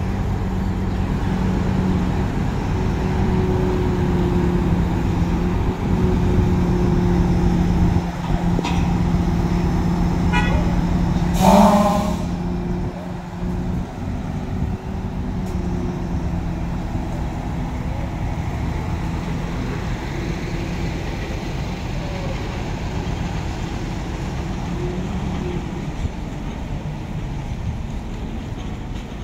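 Heavy diesel engines running steadily as a truck crane hoists a shipping container off a truck trailer. One short horn toot comes a little over eleven seconds in and is the loudest moment, and the engine hum eases slightly after it.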